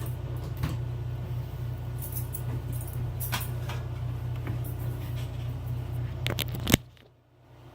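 Handling noise as a charger cord is connected to the camera: scattered small clicks and rattles over a steady low hum. Near the end a loud click is followed by the hum cutting off abruptly.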